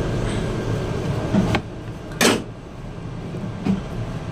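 Handling noises at a workbench: a few small clicks and one louder knock about two seconds in, over a low rumble that drops away about one and a half seconds in.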